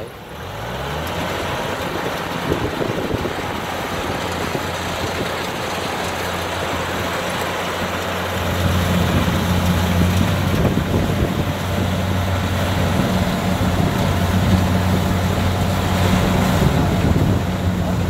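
Kubota DC60 combine harvester running steadily under load as it cuts and threshes lodged rice, a continuous diesel engine hum with the machine's working noise. The pitch rises in the first second, and the sound grows louder about eight seconds in.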